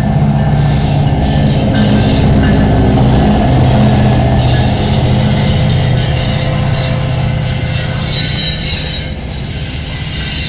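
Freight train passing behind a diesel locomotive. The locomotive's engine hums low for the first several seconds, then the rolling cars go by with rushing wheel noise and thin, high wheel squeal.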